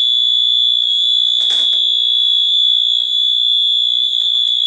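Piezo buzzer of a homemade fire alarm system sounding one loud, steady, high-pitched tone, set off by a manual pull station. There is a faint knock about a second and a half in.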